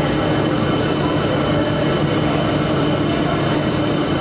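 Steady industrial machine noise from a fiber laser tube welding machine running: a constant low hum with several steady high whining tones over it.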